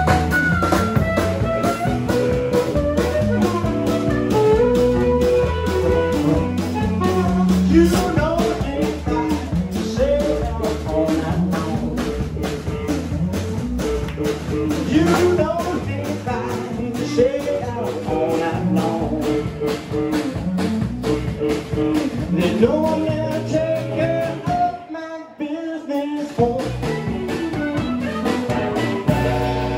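Live blues band playing: drum kit keeping a steady beat under electric guitar and bass, with a man singing and then playing harmonica. About 25 seconds in the band drops out for about a second, then comes back in.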